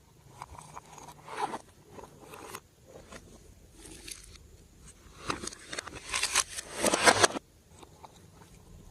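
Hands squishing and stretching glossy slime: irregular sticky crackling and popping, with a dense, louder run of pops from about five seconds in that stops sharply near seven and a half seconds.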